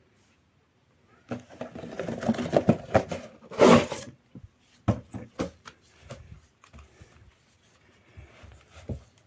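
Fan packaging being handled and opened: about three seconds of crackling rustle with one louder burst, then a run of short clicks and knocks as items are handled.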